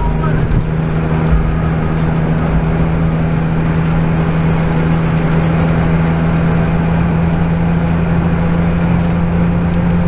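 Car engine droning at a steady pitch while cruising on the highway, heard inside the cabin, over a steady hiss of tyres on the wet road.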